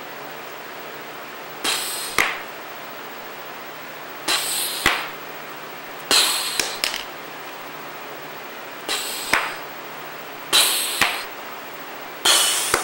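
Shotgun shells tossed one at a time onto a green-screen cloth, six times about every two seconds: each a brief rushing scrape that ends in a sharp tap.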